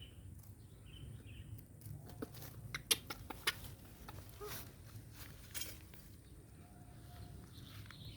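Scattered light taps and sharp clicks, the loudest a few in quick succession about three seconds in, from a small pet monkey playing with things, over a low steady hum.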